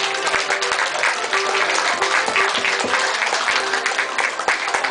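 Audience applauding: a crowd of many hands clapping, with faint music still going underneath.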